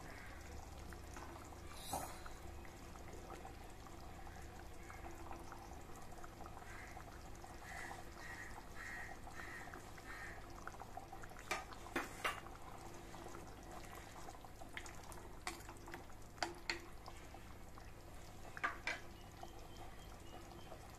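Thick kurma gravy simmering in a clay pot, a faint steady bubbling, with a handful of short sharp clicks or pops scattered through the second half.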